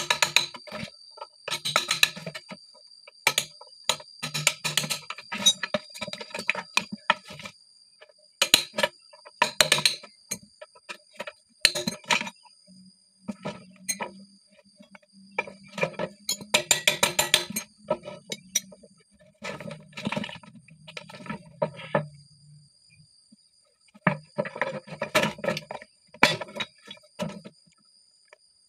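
Metal hand tools and PVC parts of a hydraulic ram pump's waste-valve housing clicking, clinking and scraping in irregular bursts as the valve is taken apart. A steady high-pitched tone runs behind throughout.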